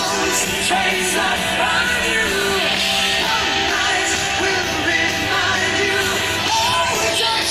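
Background rock music with a loud, yelled or sung vocal over it.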